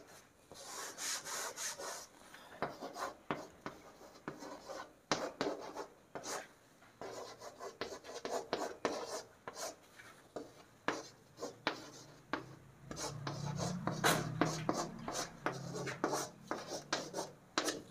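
Writing on a board: a long run of short, irregular scratchy strokes as a sentence is written out, fainter than the teacher's voice.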